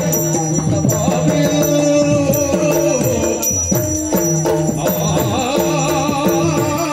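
Yakshagana music: a steady held drone under a run of drum strokes that glide down in pitch, with constant jingling of bells.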